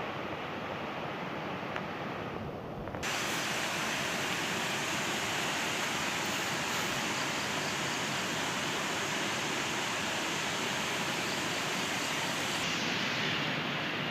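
Steady rushing of flowing water in a small canal, an even hiss without distinct splashes; it turns brighter and slightly louder abruptly about three seconds in.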